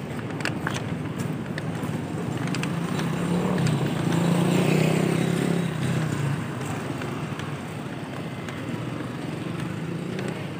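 Street traffic: a motor vehicle's engine hum swells and passes, loudest about four to six seconds in, over steady road noise, with scattered light clicks.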